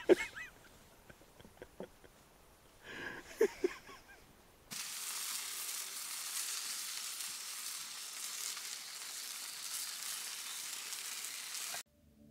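Sausages and patties frying over a campfire grill: a steady sizzle that starts a little under halfway through and cuts off suddenly near the end. A brief voice is heard before the sizzle starts.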